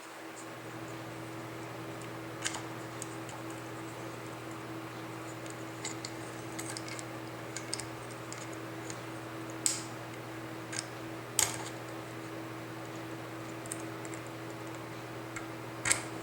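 Small metal clicks and taps as padlock parts and tools are handled, with a few sharper clicks standing out, over a steady low hum.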